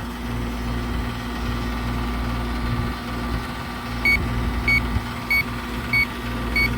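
Electronic refrigerant leak detector beeping at a slow, even rate, a little under two short high beeps a second, from about four seconds in; the unchanged rate means it is picking up no refrigerant. Under it runs a steady low machine hum.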